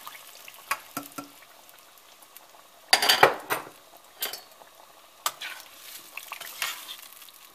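Metal spoon clinking and scraping in a stainless steel stockpot as tomato sauce with browned ground beef is stirred, over a light sizzle from the pot. A louder clatter of metal comes about three seconds in.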